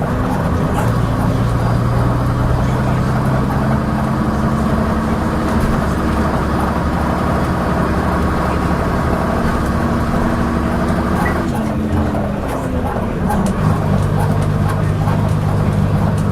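Leyland Atlantean double-decker bus under way, its Leyland 680 diesel running steadily under load with rattling and clanking from the bus. About twelve seconds in the engine note drops and changes with a gear change, then settles into a new steady pitch.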